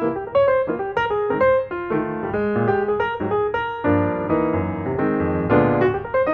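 Background piano music: a continuous run of quick notes over a low accompaniment.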